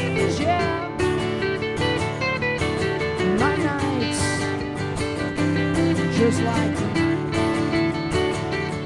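Live band playing an instrumental break: steadily strummed acoustic guitars over electric bass, with a few sliding lead notes.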